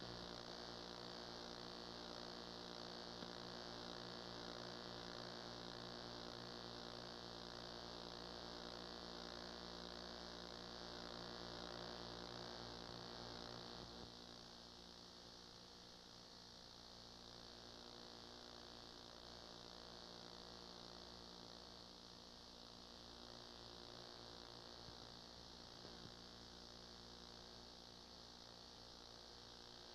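Near silence: a steady electrical hum with a layer of hiss and no other sound, dropping slightly in level about halfway through.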